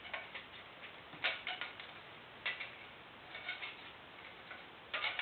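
Light metallic clicks and ticks of steel feeler gauge blades and a precision straight edge being handled on an engine block deck while measuring it for flatness. The clicks come scattered and irregular, with a small cluster near the end.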